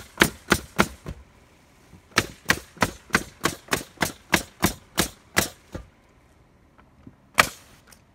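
Nails being driven with sharp, regular strikes about three a second: a short run of four, a pause of about a second, then a longer run of about a dozen, and one lone strike near the end.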